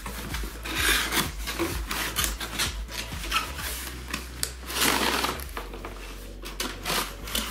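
Cardboard box being opened by hand: the end flap pulled open and the inner cardboard tray slid out, with scraping and rubbing of cardboard on cardboard and many short clicks. The longest scrapes come about one second in and about five seconds in.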